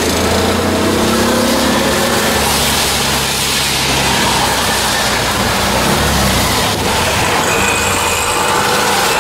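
Auto-rickshaw (trishaw) engine running steadily as the three-wheeler drives along, with a steady hiss of tyres on the wet road.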